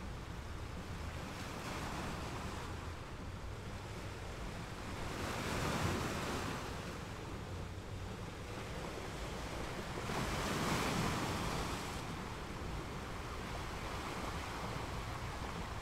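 Waves breaking on a rocky beach: a steady rushing wash that swells with each wave, loudest about a third of the way in and again about two-thirds in.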